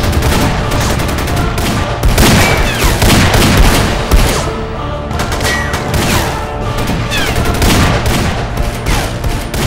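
Gunfire sound effects in rapid bursts, laid over trailer music, with the densest shooting about two to four seconds in and again near the end.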